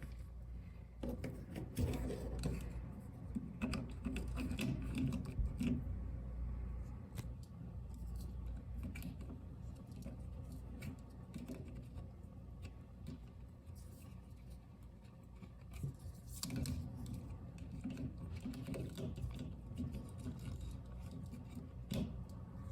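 Scattered light clicks, taps and rustles of small parts being handled and fitted by hand, over a steady low hum. The clicks come thickest a couple of seconds in and again around two-thirds of the way through.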